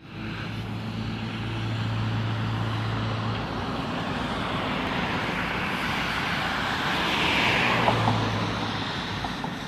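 Road traffic going by: a steady rushing noise that swells as a vehicle passes, loudest about seven and a half seconds in, over a low engine hum.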